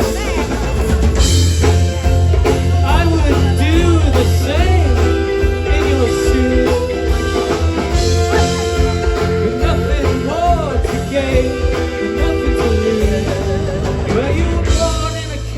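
Live rock band playing an instrumental passage, a lead line with bending, wavering notes over a heavy, steady bass.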